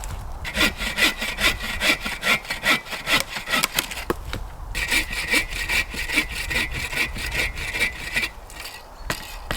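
Hand saw cutting wood in quick, even back-and-forth strokes, about three a second, in two runs with a short pause between, stopping near the end.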